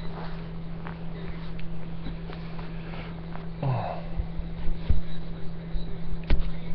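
A man sniffing about halfway through, with a few dull knocks in the second half, over a steady low hum.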